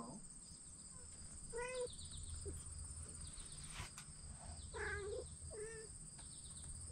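Kittens meowing: one short meow a couple of seconds in, then two more close together about two-thirds through. Insects chirr steadily and high-pitched underneath.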